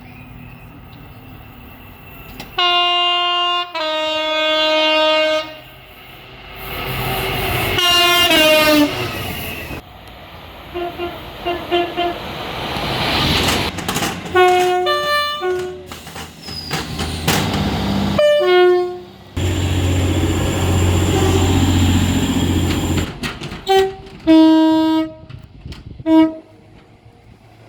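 A string of train horn blasts from several different trains, cut one after another. There are long held blasts and short toots, with the steady rumble of a moving train under some of them.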